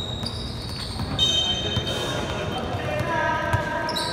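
Basketball dribbled on an indoor hardwood court, with sneakers squeaking briefly on the floor and voices in the hall.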